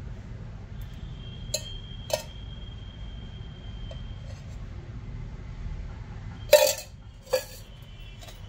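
A steel bowl and spoon clinking against a non-stick kadhai and each other: five sharp clinks, the loudest about six and a half seconds in, with a thin metallic ring after the first two. A steady low hum runs underneath.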